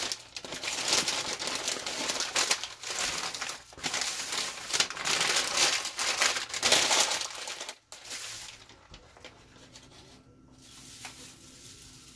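Plastic grocery bags rustling and crinkling as they are handled. The crinkling stops about eight seconds in, leaving a faint low hum and a few light ticks.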